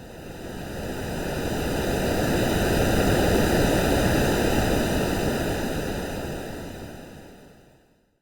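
One surf-like swell of rushing noise, an ocean-wave sound for sleep, that builds over about three seconds, peaks, and fades away to silence near the end. It has an evenly banded, slightly hollow, filtered quality.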